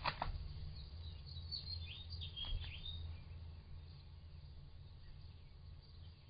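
A few quick scraping clicks as a mink squeezes into a gap at the base of a wooden wall, then several short high bird chirps between about one and a half and three seconds in, over a faint low steady hum.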